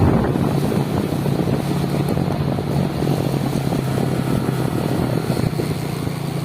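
A vehicle's engine running steadily while on the move, with a constant low drone and rushing noise.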